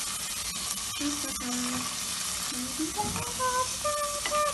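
Diced vegetables sizzling in hot oil and ghee in a steel pot while a spatula stirs and scrapes them. A voice hums a few held notes over the sizzle in the second half.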